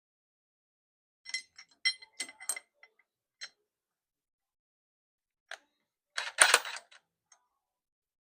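Metal tools and engine parts clinking with a bright ring: several irregular clinks about a second in, then a louder metallic clatter at about six and a half seconds.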